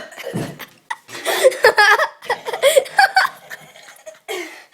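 A child's short, low burp that drops in pitch, followed by a couple of seconds of giggling and laughter.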